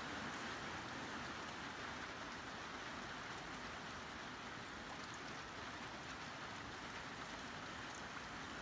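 Heavy rain pouring steadily, an even hiss with a few faint drop ticks.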